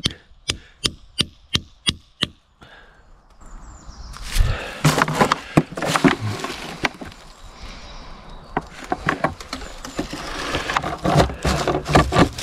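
A hammer lightly tapping a copper tube into a hole in a birch trunk, about seven sharp taps at roughly three a second, seating the spout for collecting sap. Then rustling and knocking as a plastic bottle is handled and hung on the tube.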